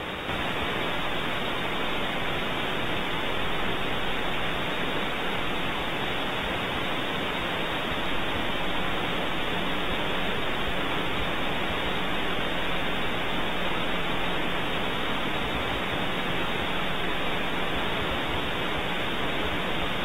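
Steady, even hiss of static from a low-quality outdoor camera microphone, with no distinct calls or other sounds, stepping up slightly in level just after the start.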